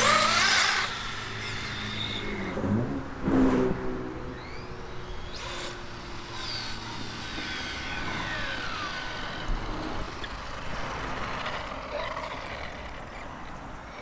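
Remote-control buggy's electric motor whining, sweeping up in pitch as it accelerates hard at the start. Fainter whines rise and fall as it slows and runs back along the road, with a low steady hum under the first couple of seconds.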